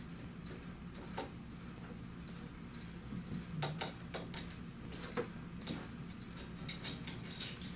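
Small clicks and light rattles of a 4-pin cable connector being fitted to the counter unit on a pipe-inspection camera's push-cable reel. The sharpest click comes about a second in, with a cluster of clicks near the end.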